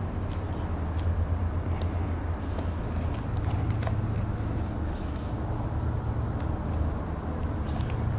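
Steady low hum with a faint, steady high-pitched whine over it, and scattered light ticks of handling.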